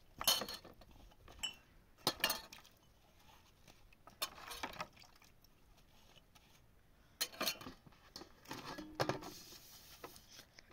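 Dishes being washed by hand: plates, glasses and cutlery clinking and clattering against one another in short, irregular bursts every second or two.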